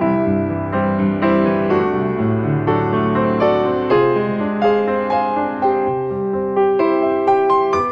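Background piano music, a melody of struck notes about two a second.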